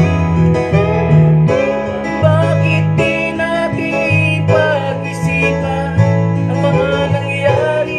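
A man singing a Tagalog folk song over strummed acoustic guitar accompaniment.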